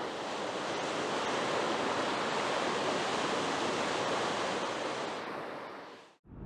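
Steady rush of water, a thawing snowmelt waterfall or coastal surf, that fades out near the end.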